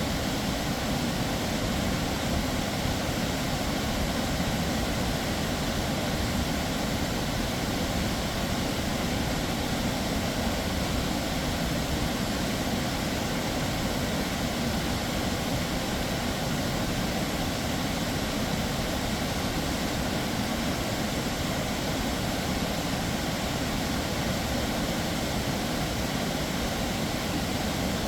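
Snoqualmie Falls, a tall waterfall, plunging into its basin: a steady, deep rush of falling water that never changes in level.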